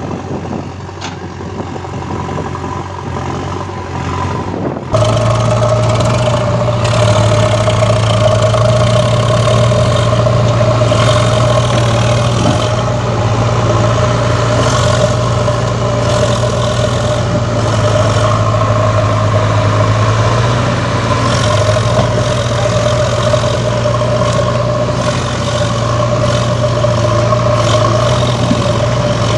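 Engine sound effect of a heavy vehicle running steadily. It is dubbed over plastic toy vehicles that have no motor, and it jumps abruptly louder about five seconds in.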